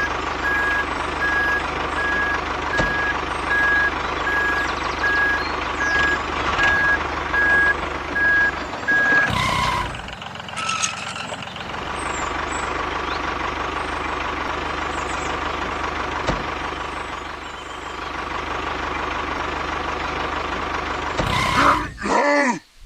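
Heavy vehicle engine running steadily with a regular reversing beeper sounding over it for the first nine seconds or so; the engine sound carries on after a brief break.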